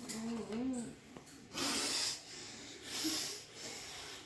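A child's short wavering hum or voiced sound, followed by breathy huffs of air close to the microphone, two or three of them.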